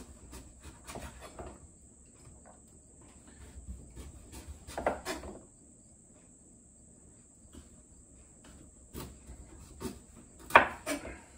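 Chef's knife cutting the peel off a butternut squash on a wooden cutting board: scattered scrapes of the blade through the rind and taps on the board, with a louder run of cuts about five seconds in and the loudest knock near the end.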